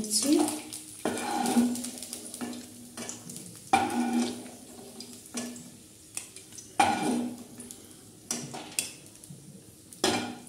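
Spatula scraping and knocking against a nonstick kadai and a bowl as fried cashews and raisins are scooped out of the ghee. There are a few sharp knocks with a brief ring, spaced about three seconds apart, with softer scraping between them.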